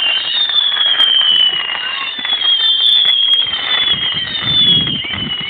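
Fireworks whistling: a high tone that dips slightly in pitch and starts again about once a second, over crackling. A low rumble comes in about four seconds in.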